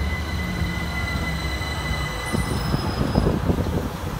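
Southern Class 377 Electrostar electric train moving, with a steady high whine and a low hum that fade, then a run of low rumbling knocks in the second half.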